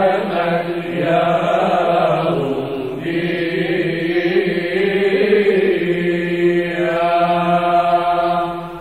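Byzantine chant sung in Arabic by a church chanting choir: a melody moves over a steady held low drone note, and the singing fades right at the end.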